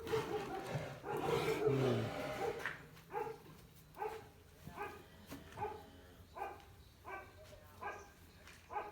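Cow with a breathing problem making a louder drawn-out call with a falling pitch in the first two seconds, then short grunting breaths, each with a pitched tone, about twice a second: laboured breathing from respiratory distress.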